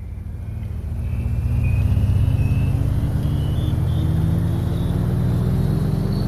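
An engine speeding up slowly, its pitch rising steadily throughout and its loudness building over the first two seconds.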